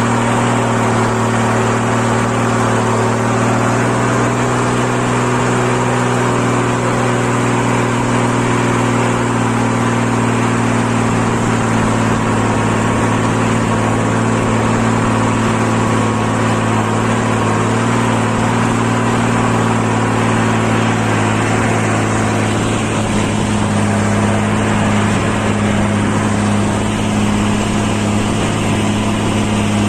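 Tractor engine running steadily and continuously, its note shifting slightly about two-thirds of the way through.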